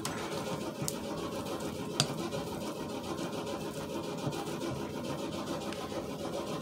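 A steady background machine hum, with faint scraping of fingers in a glass mixing bowl of melted chocolate. There is a small click just under a second in and a sharp click about two seconds in.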